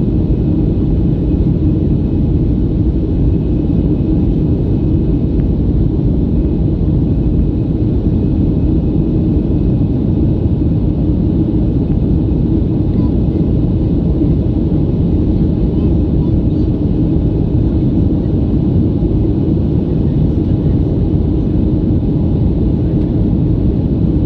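Cabin noise of a Boeing 737-500 in flight, heard from inside at a window seat: the steady, deep rumble of its CFM56 engines and the airflow, with faint steady tones above it.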